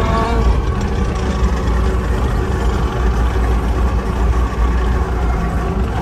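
Skid steer loader's engine running steadily with a low, even drone, heard from the operator's seat in the cab.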